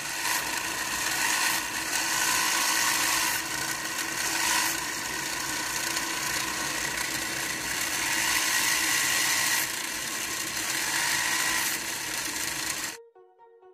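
Small BO DC gear motor whirring steadily through its plastic gearbox, driving a homemade miniature differential and axle with one wheel held back while the other spins. The whir rises and falls a little in level and cuts off suddenly near the end.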